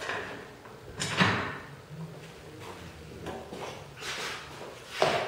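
Workshop handling noises as a block plane and the sled are picked up and set down: a knock about a second in, some scuffing, and a sharper, louder knock near the end.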